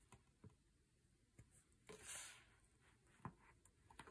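Near silence, with a few faint soft touches and a brief papery rustle about two seconds in as a paper picture-book page is handled and turned.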